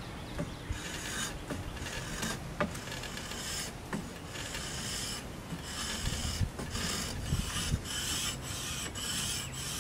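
Sandpaper rubbed back and forth along a crepe myrtle bow limb in a steady run of scratchy strokes with brief pauses between them: wood being sanded off the belly of the stiffer limb to even the tiller.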